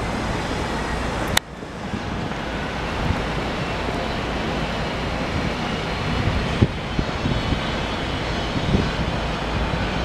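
Steady road traffic noise, a low rumble of passing vehicles. There is a sharp click about a second and a half in, with a brief dip in level after it.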